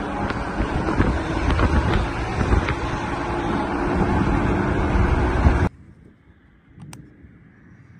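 Highway traffic passing close by, semi-trucks and a car, mixed with wind on the microphone. It cuts off suddenly about two thirds of the way through, leaving a faint quiet background with a single click.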